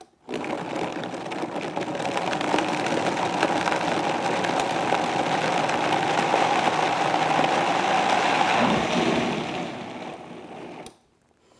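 High-speed blender running on medium to low speed, wet-chopping carrot chunks floating in water: a steady whirring with the churn of water and carrot pieces. It starts just after the beginning, tails off near the end and stops.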